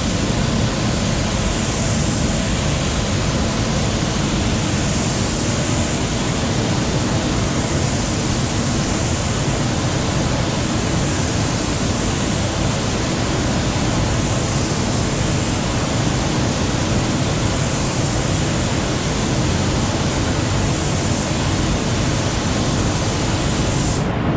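Steady, loud rush of air from a spray-paint booth, its ventilation fans and spray gun running while a car panel is painted. It cuts off abruptly near the end.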